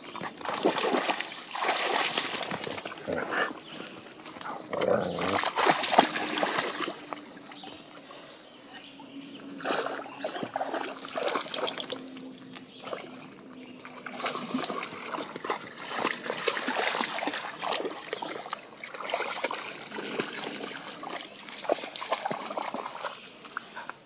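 Dogs playing: splashing and sloshing in shallow pond water, then moving about and scuffling on dry forest ground, in irregular noisy bursts.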